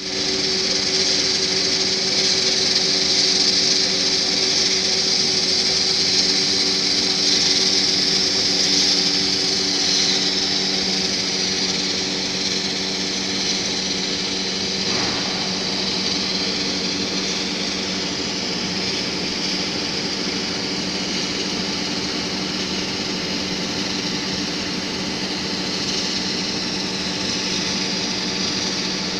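HXE-9/13DT medium wire drawing machine running: a steady hum with several held low tones under a strong high hiss, a little louder in the first ten seconds.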